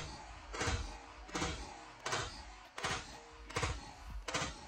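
Glock 45 9mm pistol with a compensator firing a steady string of shots, about seven evenly spaced shots, one every 0.7 seconds. The gun is running a light 13-pound recoil spring.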